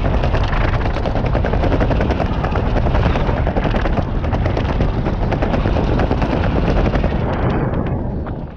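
Wind rushing and buffeting on the microphone of a skydiver descending under parachute, a loud dense rattle that fades near the end.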